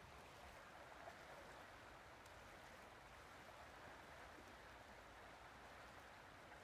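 Near silence: the faint, steady rush of a river's flowing water.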